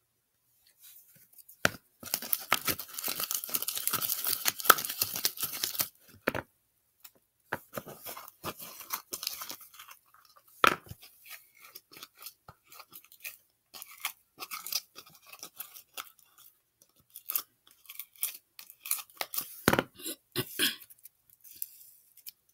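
Sticky glue slime setting with borax activator, crackling and popping as it is squished and worked: a dense run of crackling for about four seconds, then scattered crackles and snaps as it is pulled apart. Very "sizzly".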